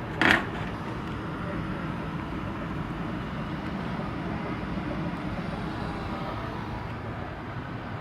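An HVAC air handler's blower running with a steady whooshing rumble. A short loud burst of noise comes about a quarter of a second in.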